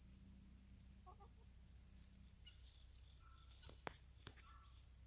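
A few faint, short chicken clucks and calls spread over a near-silent background, with two sharp clicks about four seconds in.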